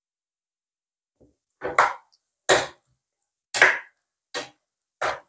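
A cooking spoon stirring and scraping shredded chicken around a frying pan in separate short strokes. The first, faint stroke comes about a second in, followed by about five louder ones that come faster toward the end.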